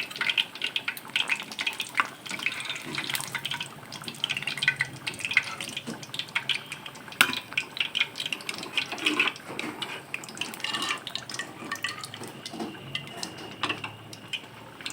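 Sliced onions frying in hot oil in a kadai, crackling steadily, with frequent clicks and knocks of a spatula against the pan as the browned onions are stirred and lifted out.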